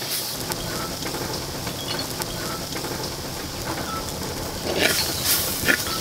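Chopped tomatoes and a spice mixture sizzling in a hot clay pot while a wooden spoon stirs them. There are a few louder scrapes of the spoon against the pot near the end.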